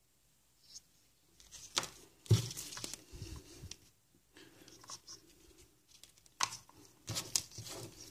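Handling noise: scattered taps and clicks with a short crinkling rustle, the loudest about two seconds in, and a few more taps near the end.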